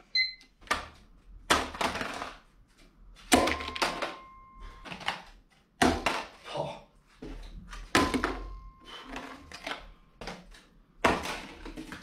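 Paper plates landing on a tabletop, a series of slaps and clatters about every second, as plates are tossed and pile up. A couple of the hits leave a short ringing tone. A brief electronic beep at the very start, as a digital timer is started.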